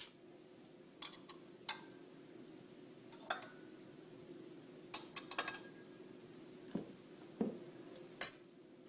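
Glassware and small objects being handled on a table: a series of separate light clinks and taps, the loudest near the end, over a faint steady hum.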